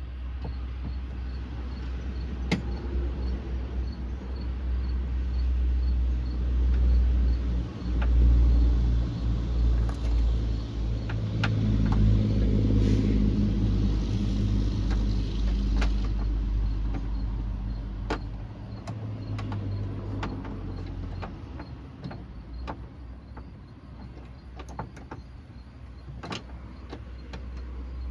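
Scattered clicks and taps of a ratchet and bolt being worked inside a car door, over a steady low rumble. A louder humming rumble swells up in the middle and fades away.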